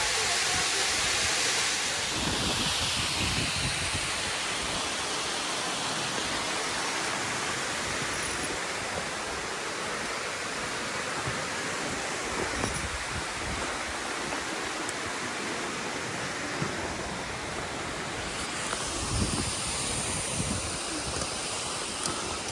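Steady rushing of a mountain waterfall pouring down a rock face, with wind buffeting the microphone in low gusts.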